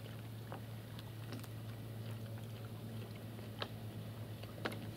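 A person chewing a mouthful of smoked barley-groat sausage, with a few faint wet mouth clicks, over a steady low hum.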